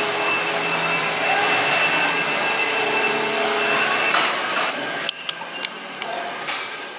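Steady gym background noise with a faint high whine. From about five seconds in it drops a little and several sharp metal clicks come as the cable machine is adjusted.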